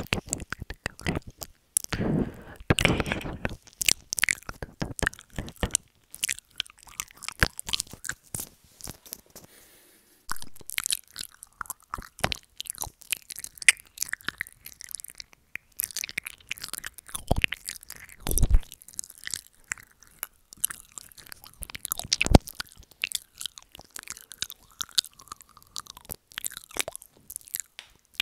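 Wet mouth sounds for ASMR 'ear eating', made right against a wired earbud microphone: irregular lip smacks and tongue clicks, with a short pause about ten seconds in.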